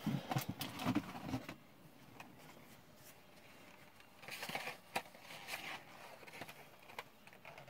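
Packaging being handled during an unboxing: a cluster of clicks and taps in the first second and a half, then a couple of seconds of rustling starting about four seconds in.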